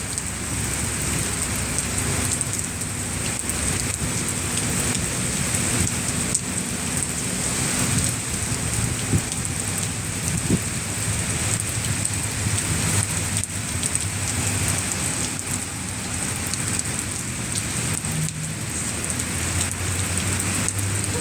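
Steady rain falling and pattering on surfaces, with a couple of sharper drip ticks about halfway through.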